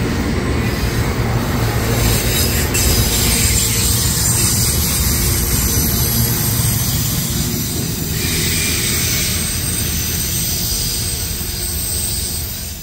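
Freight train of autorack cars rolling past at close range, a steady loud rumble and rattle of steel wheels on the rails, falling off near the end as the last car passes.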